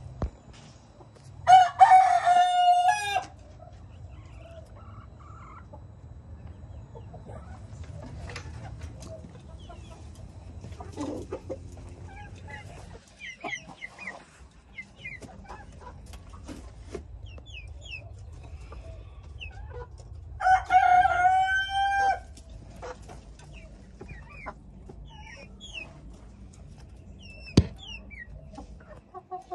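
Rooster crowing twice, the first crow a couple of seconds in and the second about two-thirds of the way through, each lasting under two seconds. Between the crows, chickens cluck and chirp softly. A single sharp knock comes near the end.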